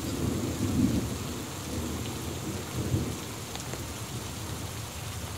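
Steady rain of a summer thunderstorm, with a low rumble of thunder underneath that swells twice.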